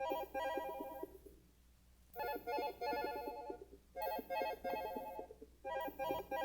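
Short electronic keyboard-like jingle of quick pulsing pitched notes, heard about four times. Each repeat fades away before the next begins.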